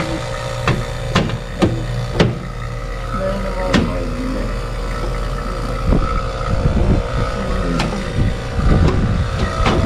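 Air-conditioner outdoor unit running with its newly replaced compressor during refrigerant charging: a steady mechanical hum with a constant tone, and several sharp clicks and knocks over it.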